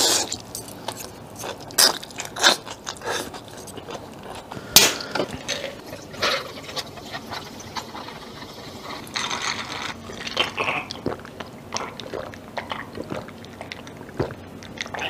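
Close-miked eating: wide biangbiang noodles chewed, with sharp mouth clicks and smacks. About nine seconds in, orange soda is poured from a can over ice into a glass, a hiss lasting a couple of seconds. Drinking sounds follow near the end.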